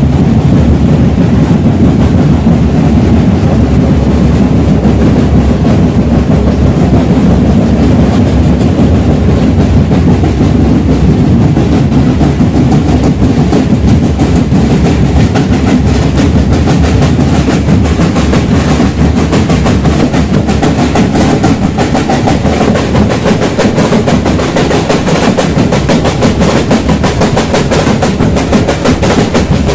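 Marching drum band playing a fast, driving beat on snare-type drums, loud and dense. The strokes grow sharper and clearer in the second half.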